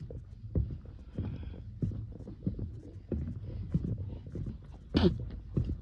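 Footsteps walking at a steady pace on a concrete walkway, about one step every 0.6 seconds, with a sharper scuff near the end.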